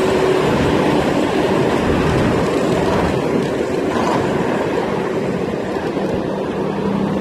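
Steady rolling noise from a small 250 W electric kick scooter riding along an asphalt street: its small wheels running over the pavement.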